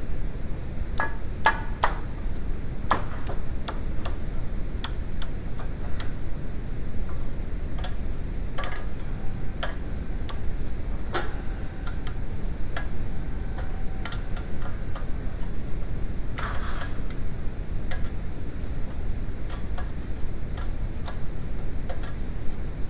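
Irregular sharp clicks and light metallic taps, a few seconds apart, over a steady low background hum.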